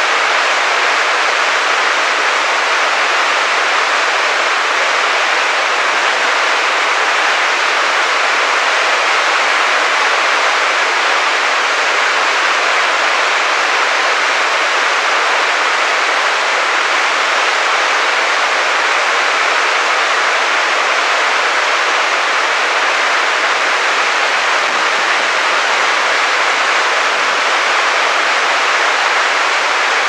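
Sandan Falls, a stepped waterfall, rushing steadily: white water pouring down a rocky channel in an even, unbroken hiss.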